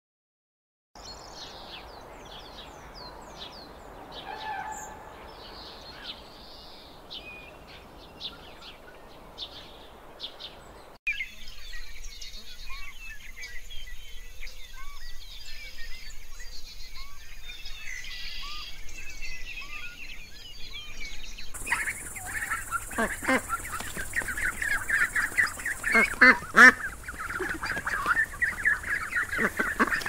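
Birds calling and chirping in three back-to-back clips that change abruptly, about a second in, about a third of the way through and about two-thirds through. The last clip is louder, with a dense flock of birds calling over one another.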